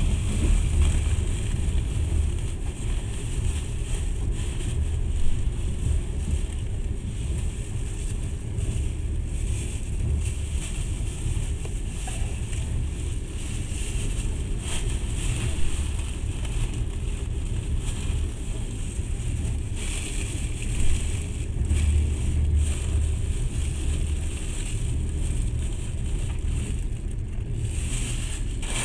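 Moving passenger train: a steady deep rumble of wheels running on the rails with a rushing hiss, and a few brief louder knocks.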